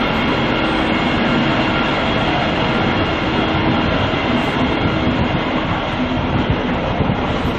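A steady, loud mechanical rumble with a faint steady hum through about the first half.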